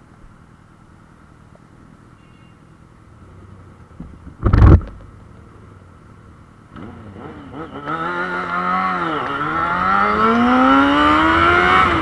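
Yamaha Fazer 600 inline-four engine, quiet at first, then accelerating: its pitch climbs, dips once at a gear change about nine seconds in, and climbs again. A short, loud burst of noise comes about four and a half seconds in.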